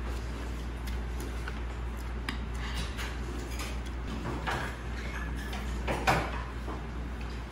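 Scattered light clicks and clinks of metal chopsticks and tableware, the loudest about six seconds in, over a steady low hum of room noise.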